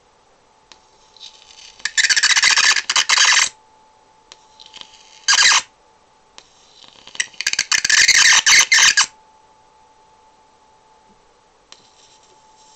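High-voltage arc from a homemade ZVS-driven transformer struck three times, each a loud harsh buzzing hiss: about a second and a half long, a brief one near the middle, then about two seconds. A faint steady high tone runs underneath.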